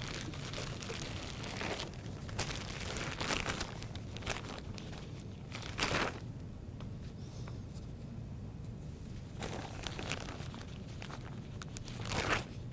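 Plastic bag of flour tortillas crinkling as gloved hands pull the tortillas out of it: irregular rustles, with a louder crinkle about six seconds in and again near the end.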